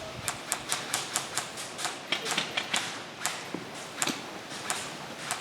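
Airsoft guns firing a quick string of sharp shots, about four or five a second, then slowing to single shots every half second or so.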